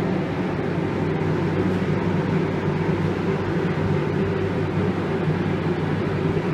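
Steady machinery hum with a rush of air: constant low droning tones under an even hiss that does not change.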